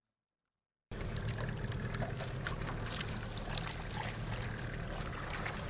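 After about a second of dead silence, steady outdoor noise from a boat on the water cuts in: a low rumble with small trickling water sounds and scattered light ticks.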